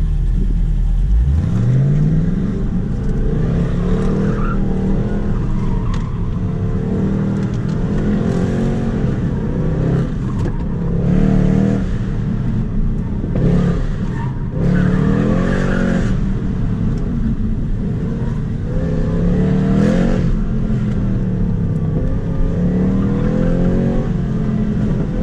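Car engine on an autocross run. It pulls away about a second in, then revs rise and fall over and over as it accelerates and lifts for the turns through the cone course.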